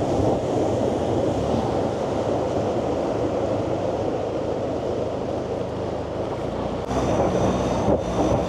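Turbo diesel longtail boat running at speed, its engine noise mixed with wind buffeting the microphone and water rushing past the hull. Near the end the sound changes and a thin, steady high whine appears.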